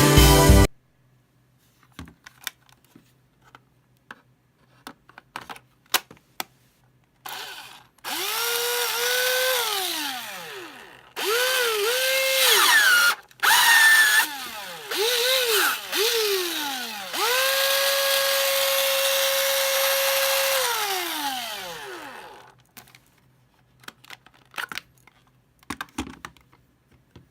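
Cordless drill motor run in five trigger pulls, each spinning up to a steady whine and winding down when released, the last a longer run of about five seconds. Scattered clicks of handling come before and after the runs.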